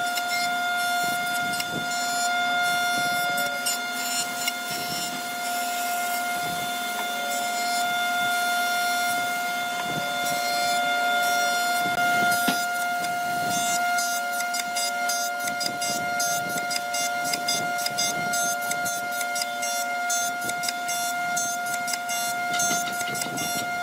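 A machine running with a steady high whine, over rapid irregular clicking and ticking.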